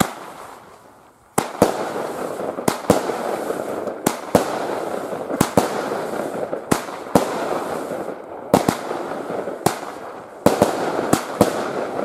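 Blackboxx Knallbär fireworks battery firing: a first shot goes off right at the start, then from about a second and a half in come sharp bangs, often in close pairs, roughly once a second, over a steady rushing noise between them.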